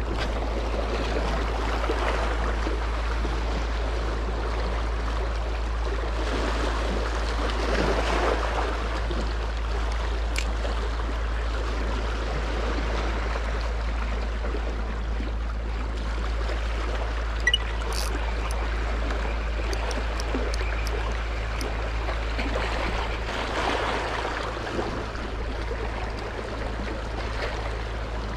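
Small sea waves washing against the stones of a rocky shore, a steady rush that swells now and then, with a few light clicks about two-thirds of the way through.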